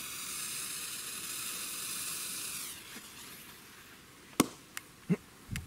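Lit fuse of a firecracker hissing steadily for nearly three seconds, then fading away. A few short sharp knocks follow near the end.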